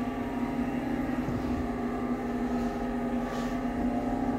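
Passenger lift car's ventilation fan running with a very noticeable fan noise, a steady hum with one strong low tone, while the car travels down between floors.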